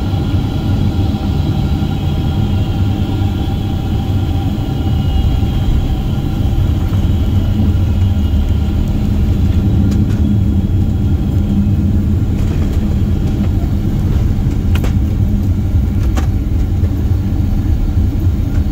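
Cabin rumble of a Boeing 767-400ER with GE CF6-80C2 engines rolling out on the runway after touchdown: a loud, steady low roar of the wheels and engines, with a few faint clicks in the second half.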